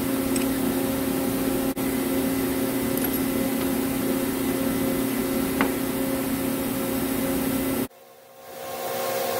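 Steady hum of running workshop machinery, with a faint clink of metal parts about five and a half seconds in. The hum cuts out for about a second near the end, then fades back in.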